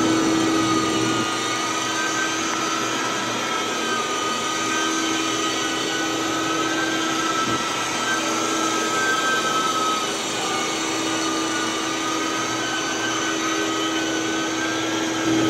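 Rotovac DHX rotary carpet extractor running steadily while worked over carpet: a dense vacuum roar with a steady high whine on top.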